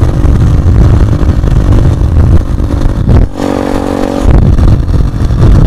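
SSR pit bike's small single-cylinder engine running at cruising speed, under heavy wind rumble on the helmet-mounted microphone. About three seconds in the wind noise drops for about a second and the engine's steady note comes through clearly, then the rumble returns.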